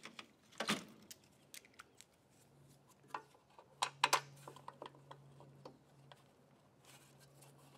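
Scattered small clicks and taps of plastic and metal as a gas tank is seated on a walk-behind mower engine and its mounting bolts are threaded in by hand. The louder clicks come about a second in and again around three to four seconds in, over a faint low hum.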